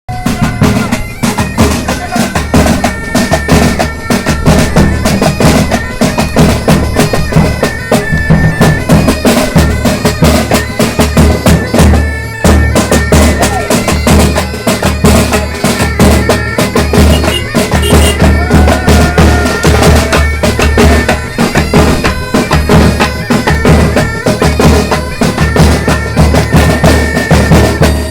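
Loud music with a reedy, pipe-like wind melody over heavy drums keeping a steady beat.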